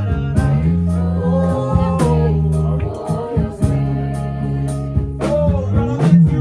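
Background music: a song with a singing voice over held bass notes, guitar and a steady beat.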